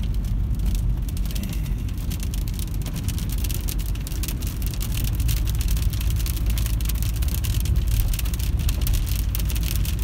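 Moving car heard from inside the cabin: a steady low rumble of tyres and engine under a dense pattering of rain and hail on the roof and windshield, which thickens about halfway through.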